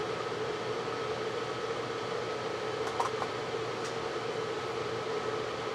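Steady background hum and hiss with a faint, unchanging tone in it; a few faint light clicks about three to four seconds in.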